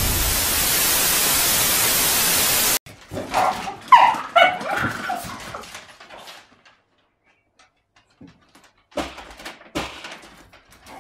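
A steady hiss of static that cuts off abruptly about three seconds in. It is followed by a couple of seconds of a small dog whining and yelping, then a few scattered knocks.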